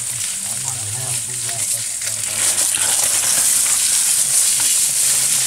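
A steady high-pitched hiss, with faint voices murmuring behind it.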